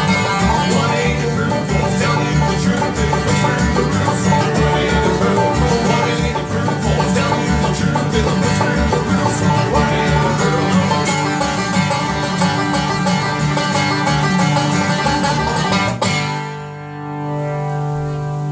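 Fast bluegrass on banjo, guitar and upright bass. Near the end the band stops sharply and a final chord is left ringing.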